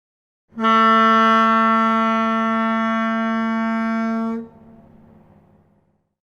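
Ship horn sounding one long, steady blast of about four seconds. It cuts off sharply and leaves a fading echo.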